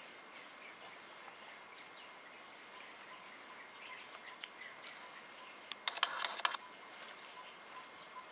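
Quiet forest ambience with a steady high thin tone and a few faint bird-like chirps. About six seconds in comes a brief crackling rustle of leaves and stems.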